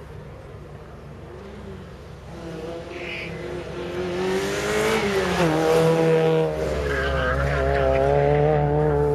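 Citroen Xsara rallycross car's engine at high revs, growing louder as it races toward and past. The note drops sharply about five seconds in as it goes by, then holds steady as the car pulls away.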